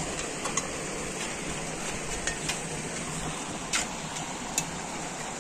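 Shallow stream running over rocks, a steady rushing hiss, with a few brief sharp clicks over it.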